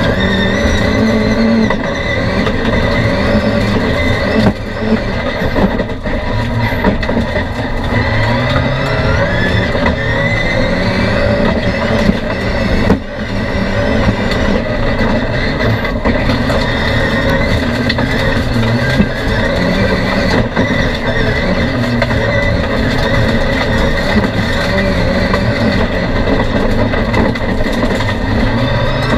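Touring autocross race car's engine heard from inside the cockpit under hard driving, its pitch climbing again and again as it revs up through the gears, with brief drops about four and thirteen seconds in.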